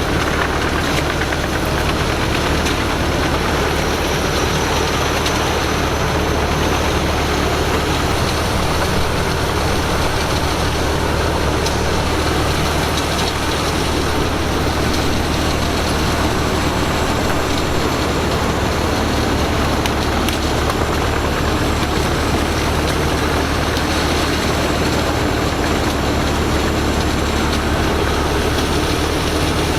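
Pezzolato PTH1200 truck-mounted wood chipper running steadily, its large engine and machinery making a loud, constant noise with no change.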